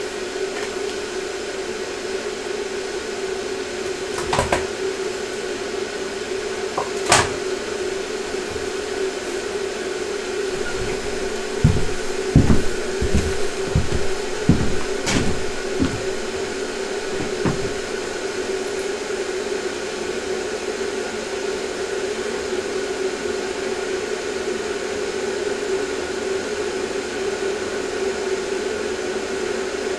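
A steady mechanical hum, with a few sharp clicks and, midway, a run of soft low thumps.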